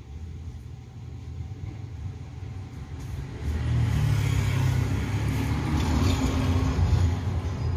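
A motor vehicle's engine rumble, passing on the road outside. It grows louder about three and a half seconds in, then eases a little near the end.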